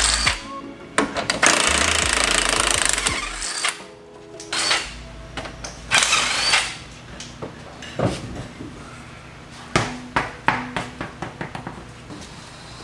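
A power tool, such as an impact wrench, running in loud bursts, then a scatter of short metallic clicks and knocks from tool work on car suspension.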